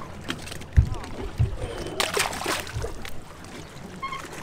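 A few dull knocks of handling, then a short rush of water about two seconds in as a bass is let go back into the lake.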